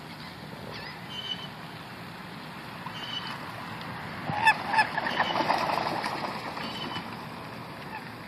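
A bird gives two short calls in quick succession about four and a half seconds in, over steady outdoor background noise.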